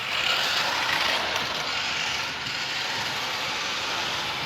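Toy RC car's small electric motor and plastic gearbox whirring steadily, starting abruptly and easing off slightly toward the end.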